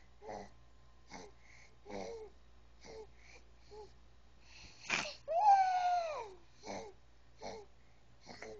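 Baby's short, breathy sounds about every three-quarters of a second, with one loud vocal sound about five seconds in that lasts about a second and falls in pitch, just after a sharp click.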